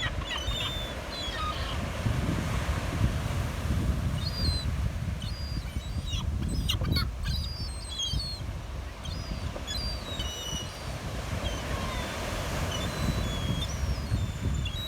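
Gulls calling, a scatter of short high calls one after another, over a steady low rumble of beach surf.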